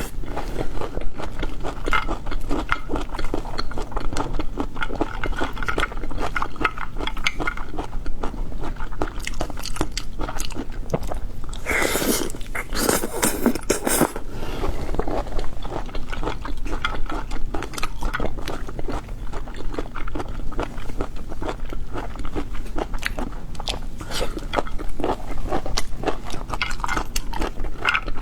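A person eating boiled cockles: many small clicks and crunches of biting and chewing, with a louder noisy stretch about twelve seconds in that lasts a couple of seconds.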